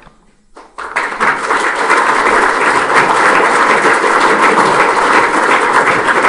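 Audience applauding. The clapping starts about a second in, quickly swells to loud, steady applause and keeps going.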